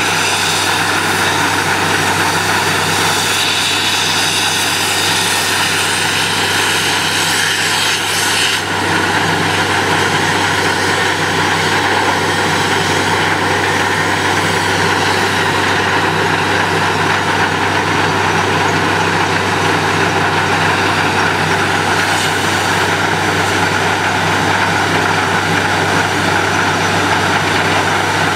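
Truck-mounted borewell drilling rig running steadily: a loud, even engine and compressor drone with a low hum. A high hiss over it drops away about eight seconds in.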